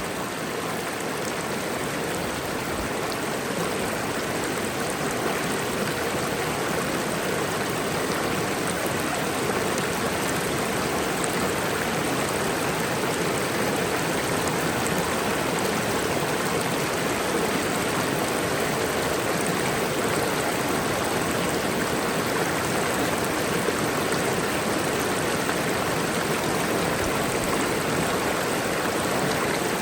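Mountain waterfall: water falling and rushing in a steady, even roar.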